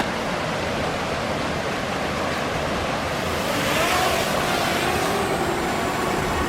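Steady rush of falling water from a waterfall and its stream, an even hiss with no break.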